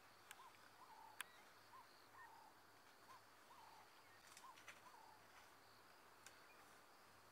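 Near silence in the bush: a faint bird repeating short notes that rise and fall, in pairs about twice a second, over a faint steady insect hiss. A few sharp snaps stand out, the loudest about a second in.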